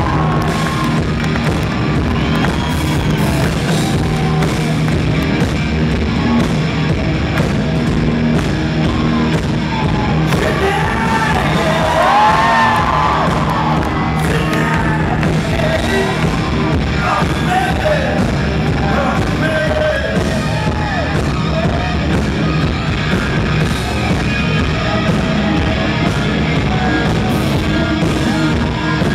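Live rock band playing loud on electric guitars, drums and keyboards, with a voice singing over it, heard from within the crowd in a large hall.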